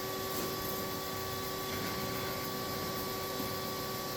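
SteelX I-2718 mitering bandsaw running with its blade turning: a steady hum with a few constant tones over even hiss.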